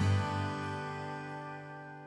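Background music ending on a final chord that is struck and then rings out, fading away.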